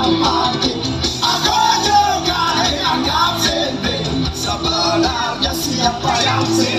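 Live rock band playing through a loud PA, with a sung melody over the instruments, heard from amid the audience.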